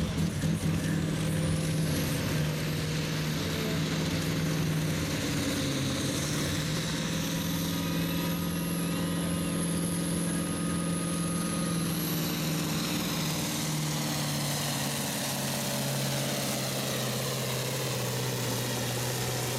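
Massey Ferguson 1155's V8 diesel engine running hard under full load as the tractor drags a weight-transfer sled; its steady pitch sags a little about two-thirds of the way through as the sled bears down.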